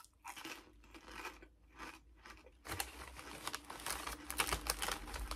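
Crunching on a potato chip, then from about two and a half seconds in the louder, dense crackle of a Lay's potato chip bag crinkling as a hand rummages inside it.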